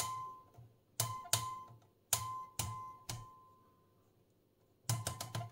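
Rotary range selector switch of a Grundig RV3 tube voltmeter clicking through its detents as the knob is turned. There are about six separate clicks, each leaving a short ringing tone, then a quick run of several clicks near the end.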